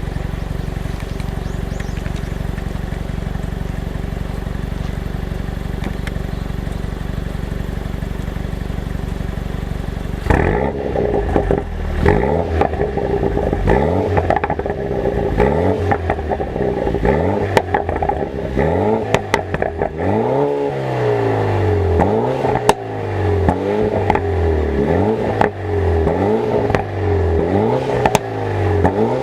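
BMW N20 2.0-litre turbocharged four-cylinder running steadily, then from about ten seconds in revved in repeated short blips, later about one a second. Sharp pops and crackles come from the exhaust as each rev falls, from a DME tune that makes the engine misfire on the overrun.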